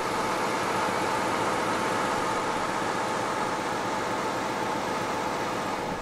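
Truck-mounted Fassi loader crane running steadily while it hoists a load on its cable: an even engine noise with a faint steady whine.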